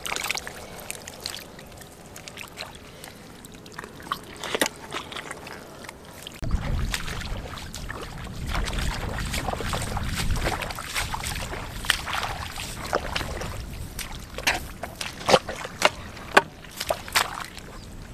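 Shallow water sloshing and wet mud squelching under hands and wading feet, with irregular sharp wet slaps and splashes. There is a heavier, steadier sloshing stretch in the middle, while the man wades through the water.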